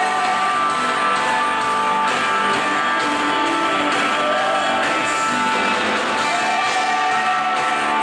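Band music with guitar playing, held tones and a steady loudness throughout.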